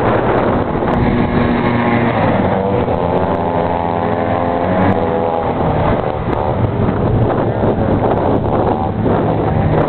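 A vintage racing snowmobile's two-stroke engine running at speed as the sled passes. Its engine note is strongest from about a second in until about six seconds in, over steady wind noise on the microphone.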